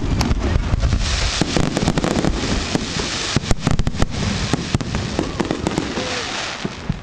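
Fireworks display: aerial shells and ground-fired effects going off in a rapid run of bangs, with dense crackling for much of the time.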